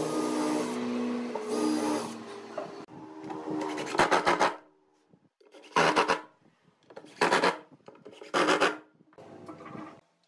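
Makita cordless drill running under load as it drives a screw into pine for about three seconds. Then a cordless impact driver drives wood screws in four short, loud bursts of rapid hammering about a second apart, with a fainter burst near the end.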